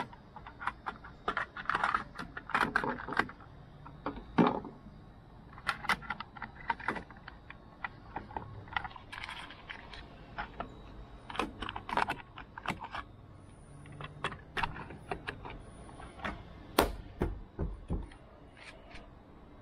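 Irregular clicks and taps of the Honda Passport's plastic roof-rail end covers being handled, snapped and pressed into place on the roof, with a few dull thumps near the end.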